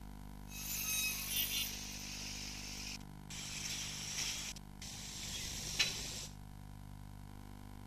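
Hissing, rustling noise in three stretches that start and stop abruptly, with a sharp click near the end, over a steady low hum.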